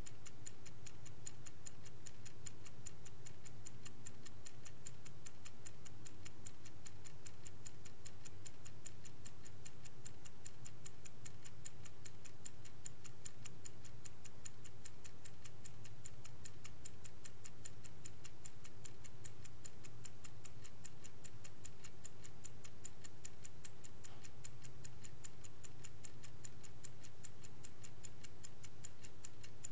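Vintage Swiss-made Angelus clock ticking in a fast, even rhythm over a faint low hum.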